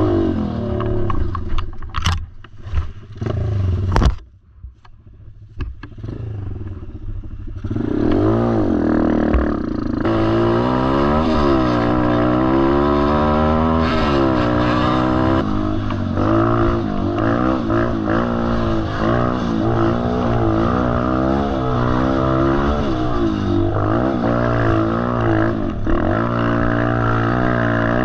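Single-cylinder 125cc four-stroke dirt bike engine revving up and down on a rough trail, its pitch rising and falling with throttle and gear changes. In the first few seconds the engine drops low, with a couple of sharp knocks, then picks up again about eight seconds in.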